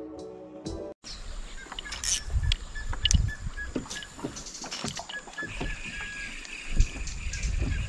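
Background music cuts off about a second in, replaced by open-air sound from a small boat on a river: low wind rumble on the microphone, moving water, and scattered knocks and clicks.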